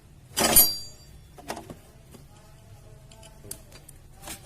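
Metal tools and parts clinking during hand work: one loud metallic clatter with a brief ring about half a second in, then a few light clicks and taps, while the scooter's horn is being unbolted with a 10 mm wrench.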